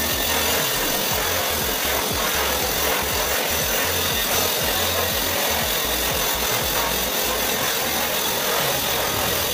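Handheld butane torch on a gas canister hissing steadily as its flame heats the end of a PVC conduit pipe to soften it for joining.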